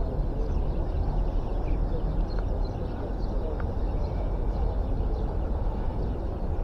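Outdoor city ambience on a windy seafront: a steady, deep rumble of traffic and wind buffeting the microphone, with a few faint high chirps.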